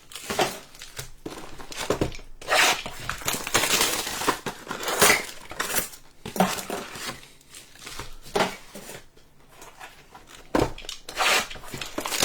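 Trading-card mega boxes being torn open: cardboard ripping and plastic wrapping crinkling in irregular bursts.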